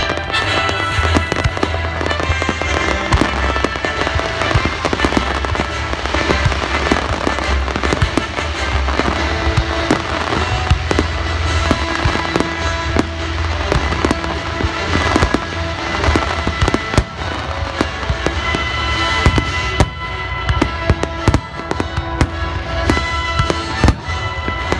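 Daytime-fireworks starmine: a rapid, continuous barrage of shell bursts and sharp reports, with a deep rumble beneath. Music plays throughout.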